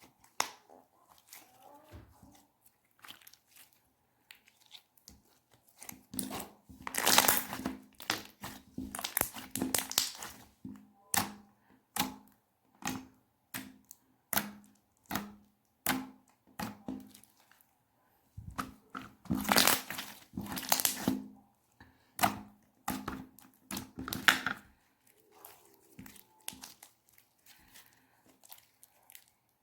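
Clear slime being squeezed and stretched by hand, giving quick sticky crackles and pops of trapped air. Two louder runs of dense crackling, one about a quarter of the way in and one past the middle.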